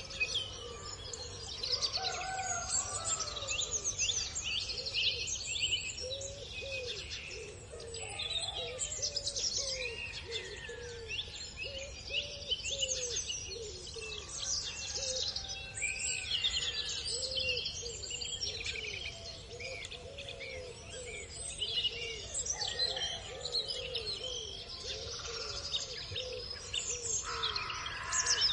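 Small birds chirping and twittering busily, over a steady run of soft, low clucking notes, about one or two a second, from hens foraging. A louder call comes near the end.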